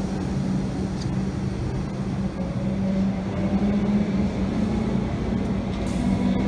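Comeng electric suburban train moving along the platform: a steady electric traction hum over wheel-on-rail rumble. The hum rises in pitch near the end as the train gathers speed.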